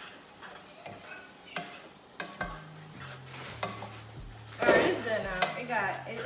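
Pasta being stirred in a pot on a gas stove: a metal utensil clinks and scrapes against the pot at irregular intervals, with a clink as the glass lid comes off at the start. A voice is heard briefly near the end, the loudest sound here.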